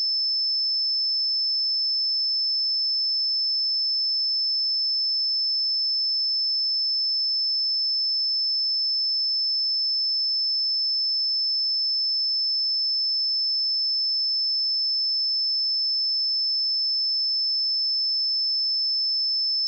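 Pure 5263 Hz sine test tone, a single steady high-pitched whistle-like tone held at constant level.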